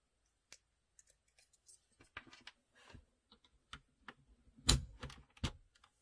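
Plastic clicks and taps of a key puller working keycaps off the switches of a Corsair mechanical keyboard: faint scattered ticks, then three sharp clicks about half a second apart near the end.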